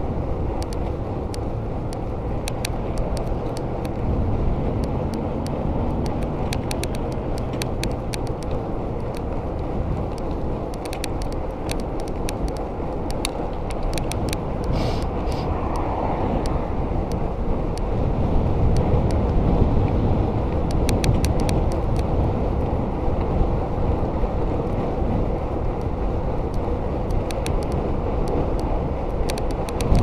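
Riding noise from a Giant Iguana mountain bike on a paved road: wind rushing over the microphone and tyre noise, with frequent short clicks and rattles from the bike. The low rumble grows louder about two-thirds of the way through.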